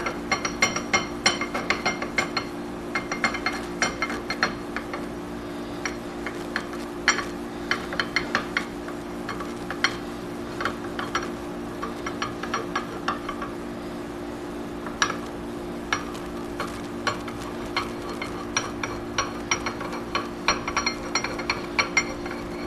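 Table lead screw of a Burke #4 horizontal milling machine being turned by hand out of its nut, giving many small irregular metallic clicks and scrapes over a steady low hum.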